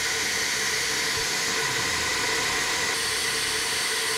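SuperFlow flow bench running at about 28 inches of water test pressure: a steady rushing hiss of air being drawn through an aluminium cylinder head's intake port at about 300 CFM, with a faint steady tone in it.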